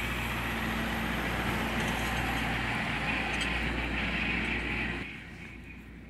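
John Deere tractor running steadily as it mows hay, its engine and mower making a constant noisy hum. The sound cuts off sharply about five seconds in, leaving a much quieter outdoor background.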